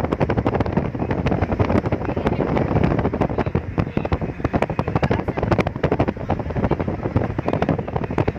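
Wind buffeting a phone microphone held at a car window, with a crackling, uneven rush over the steady rumble of the car driving at speed.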